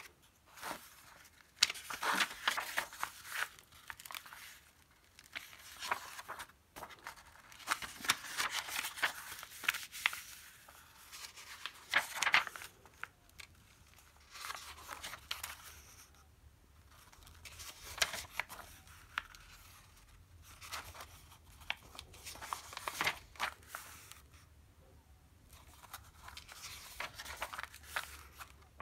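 Pages of a thin printed paper manual being turned and smoothed flat by hand: a series of irregular paper rustles and crinkles with short pauses between them.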